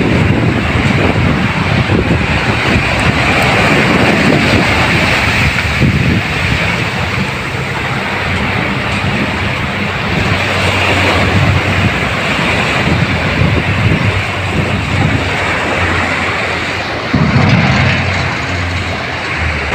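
Small waves washing up and draining back on a sandy beach, with wind buffeting the microphone. A steady low hum runs underneath from partway through.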